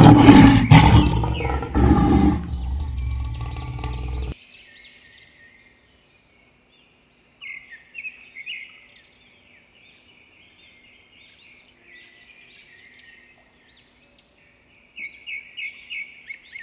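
Lion roar sound effect, loud and rough, fading and then cutting off suddenly about four seconds in. Faint bird chirping follows, with louder runs of chirps around eight seconds and again near the end.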